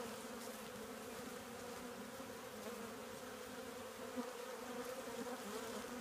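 Steady buzzing hum of a honeybee colony in an open hive.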